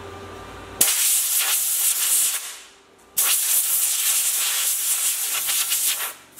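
Compressed-air blow gun hissing onto fresh spot welds on a steel door-frame repair panel, cooling the welds: two long blasts, the first about two seconds and the second about three, with another starting at the very end.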